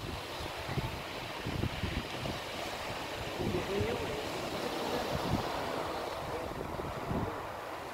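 Sea surf hissing steadily, with wind buffeting the microphone in low, uneven gusts.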